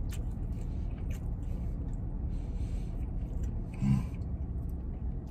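A man chewing a mouthful of sandwich with small wet mouth clicks and breathing, and a short hummed grunt about four seconds in, over a low steady rumble.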